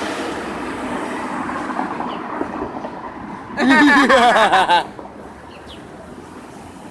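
Steady outdoor background hum. About three and a half seconds in, a loud, wavering vocal sound from a person lasts about a second.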